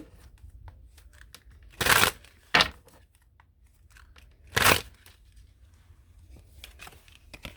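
A deck of tarot cards being handled and shuffled by hand: quiet rustles and clicks with three louder bursts of card noise, the second about half a second after the first and the third about two seconds later.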